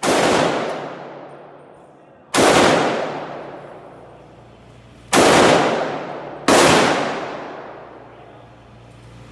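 Four single shots from a Mini Draco AK pistol (7.62×39 mm), fired semi-automatically at uneven intervals, the last two close together. Each shot is followed by a long, fading echo.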